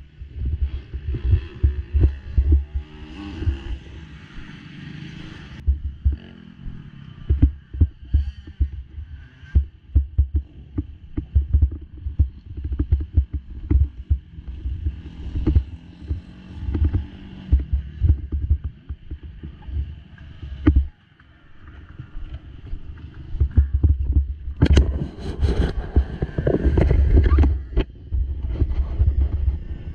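Irregular low thumps and rumble on a helmet-mounted action camera as its wearer moves about. The thumps are handling and footfall knocks carried through the helmet. From about two-thirds of the way in, a louder, steadier rumble of wind buffeting the microphone sets in.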